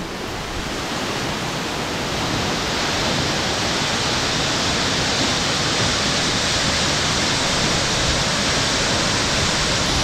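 Steady rush of a tall waterfall pouring down a rock face into its pool, heard close up, growing a little louder about three seconds in.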